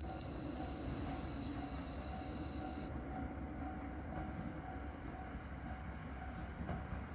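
Steady low rumble of a distant, approaching JR Hokkaido KiHa 40 diesel railcar, with a faint steady hum over it.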